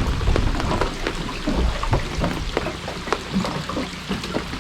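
Rain falling, with many irregular drops ticking sharply close by over a steady low rumble.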